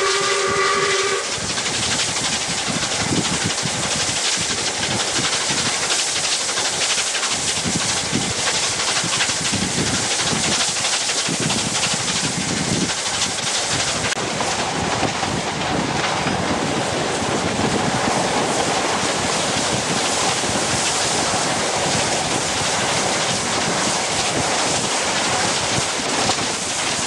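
A steam locomotive's whistle sounds a chord and cuts off about a second in, then the steady hiss, exhaust and running noise of the double-headed steam train (SAR 621 and R766) under way, heard from on board.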